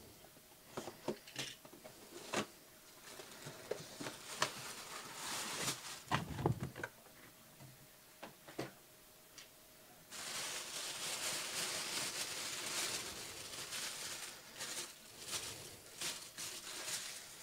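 Packaging being handled and opened to pull out a jersey. Scattered clicks and taps come first, then from about ten seconds in a steady rustling that lasts several seconds.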